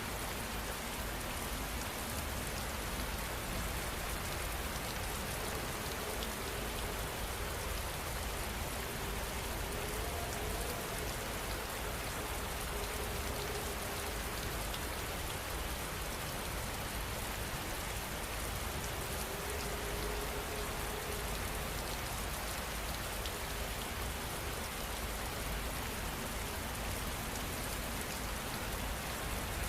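Heavy rain falling steadily, an even, unbroken hiss of drops on surfaces.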